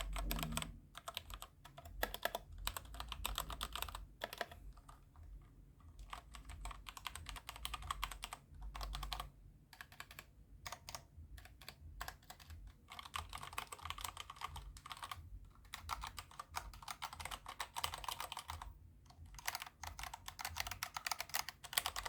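E-YOOSO Z-11 60% mechanical keyboard with red switches being typed on in quick runs of keystrokes, broken by a few short pauses. The linear red switches give a softer, less loud keystroke than clicky blue switches.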